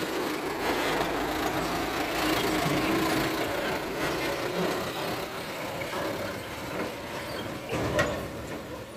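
Small dump truck driving past on a dirt track: its engine and tyres are loudest a few seconds in and fade as it moves away. A single sharp knock sounds near the end.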